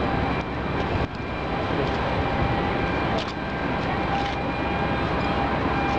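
Steady loud roar of outdoor background noise, with no clear voices, dipping briefly about a second in.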